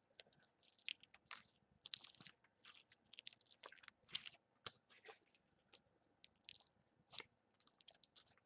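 Blue slime being kneaded and squeezed in both hands: faint, irregular wet clicks and crackles, many small ones close together.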